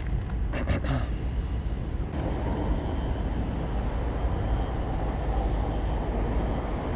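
Steady low rumble of wind buffeting the action-camera microphone, with a few brief clicks a little under a second in.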